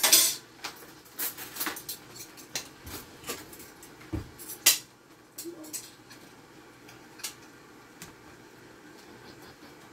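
Kitchen clatter: a metal utensil clinking against a stainless steel pot, with cutlery and dishes knocking. There are several sharp clinks in the first five seconds, the loudest at the start and about halfway through, then only a couple of faint ones.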